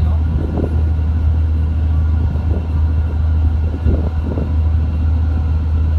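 Boat diesel engine running steadily, a deep, even drone.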